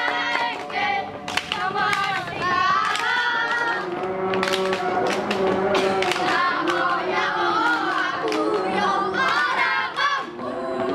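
A group of young boys singing a scout yel-yel (cheer) together, with sharp hand claps along the way.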